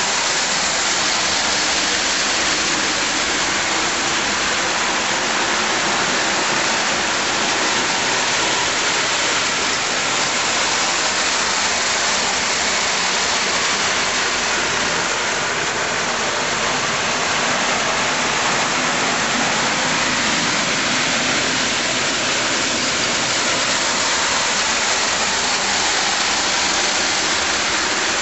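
Two circa-1930 Boucher 2100 standard gauge tinplate locomotives running double-headed with a freight train: a loud, steady rushing noise of the train rolling on tinplate track.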